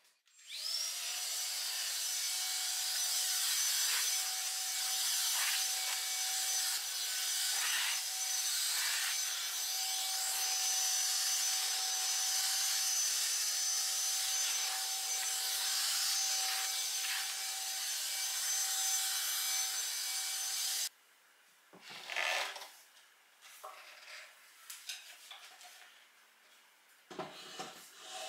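Vacuum cleaner running with a steady motor whine over a rushing airflow noise, being pushed over the floor. It starts abruptly just after the start and cuts off abruptly about three-quarters of the way through, followed by a few light knocks and handling sounds.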